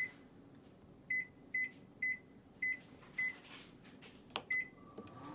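Panasonic microwave oven's touch panel beeping at each key press: seven short high beeps as the power and time are set and start is pressed. The oven then starts running with a steady hum near the end.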